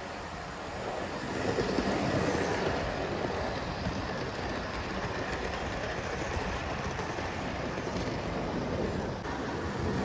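Hornby OO gauge class 92 model electric locomotive and coaches running along model railway track: a steady rumble of the motor and wheels on the rails, growing louder about a second and a half in as the train comes close.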